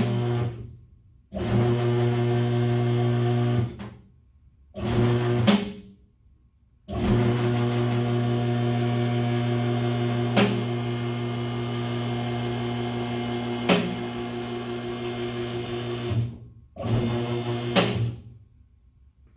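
Electric hydraulic pump motor of a two-post vehicle lift humming steadily as it raises a truck, run in five bursts that stop and start, the longest about nine seconds. A few sharp clicks come from the lift while it is going up.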